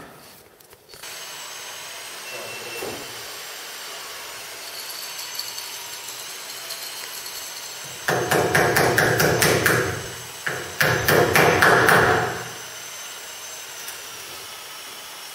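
A power tool run in two rattling bursts of a second and a half to two seconds each, with a short pause between them, over a steady low workshop background.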